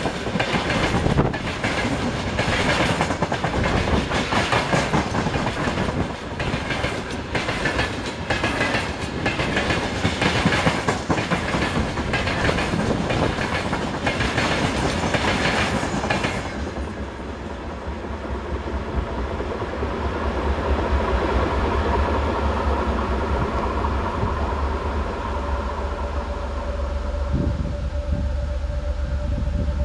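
Train wheels running over rail joints in a fast, dense clickety-clack. About sixteen seconds in, the clicking stops and a steady low rumble with a faint held tone carries on.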